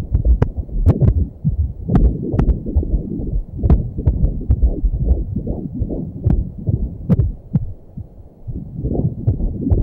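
Fetal heartbeat picked up by an ultrasound Doppler, a rapid rhythmic whooshing at about two to three beats a second. It fades briefly about eight seconds in.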